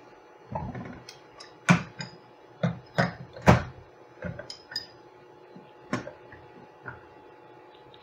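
A heavy 14-inch steel pipe wrench is being shifted and set down on a circuit board at a workbench edge, making a string of about a dozen irregular knocks and clunks. The loudest come about two seconds and three and a half seconds in.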